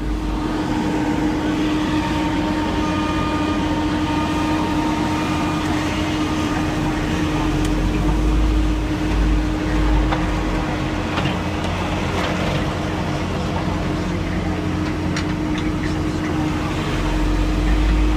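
Heavy diesel road-surfacing plant (roller, backhoe loader and asphalt paver) running steadily close by, with a constant hum and deep rumble that swells a couple of times, and a few scattered clicks and knocks.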